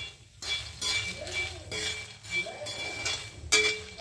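Metal spatula scraping and clinking against a metal kadhai as fox nuts (makhana) are stirred while roasting in a little oil, in repeated strokes about every half second, some ringing briefly.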